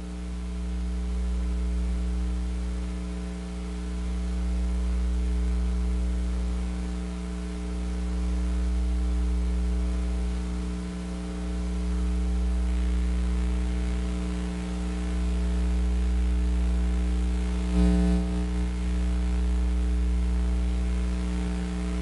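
Steady electrical mains hum and buzz with light hiss, with a brief louder crackle about three-quarters of the way through.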